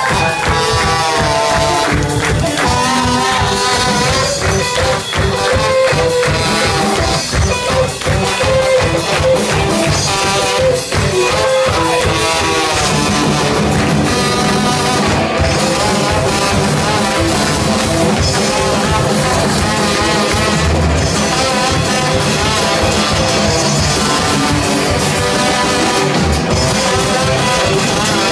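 Live folk-punk band playing loudly: drum kit, strummed acoustic guitar, trombone and sousaphone. The low end fills out about halfway through as the band comes in fuller.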